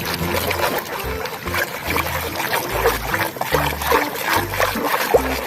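Water trickling and splashing in irregular spurts as a muddy plastic toy is washed, over backing music with a stepped bass line.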